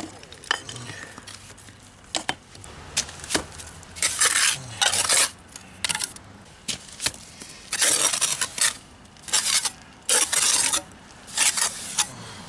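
Steel trowel scraping and spreading wet cement mortar over a patch in a brick wall, in irregular short strokes with sharp clicks of metal on brick; the strokes grow longer and louder from about four seconds in.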